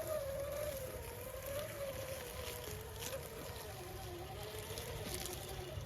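Electric motor and gear whine of a 1/6-scale RC rock crawler as it drives, its pitch wavering up and down with the throttle, over a low rumble and a few faint clicks.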